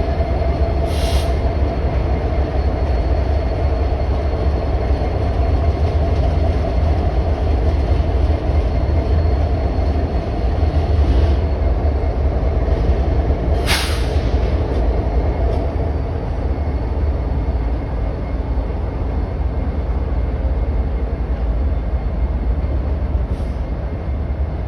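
Union Pacific freight train cars rolling by in a steady heavy rumble, with two brief sharp metallic clanks or squeals, one about a second in and one about halfway through.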